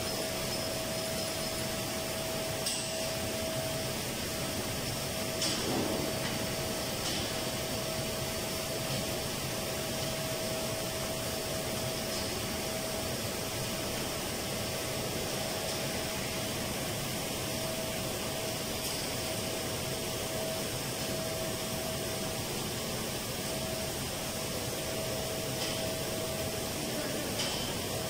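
Steady machinery hum with a constant whine, typical of air-handling and ventilation equipment running in a plant room, with a few faint clicks and knocks scattered through it.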